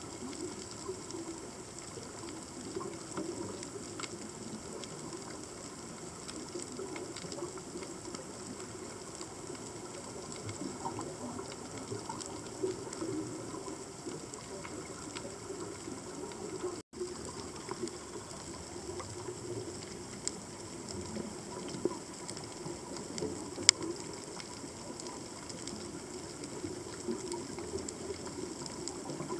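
Underwater ambience picked up by a submerged camera: a steady low, rushing wash of water noise with scattered faint clicks and one sharper click near the end. The sound drops out for a split second about halfway through.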